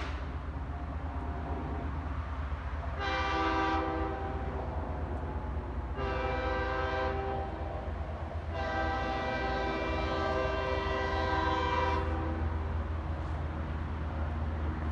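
CSX locomotive's air horn sounded three times: a short blast, a second blast of about a second, then a long blast of about three and a half seconds, over the steady low rumble of the locomotive's diesel engine.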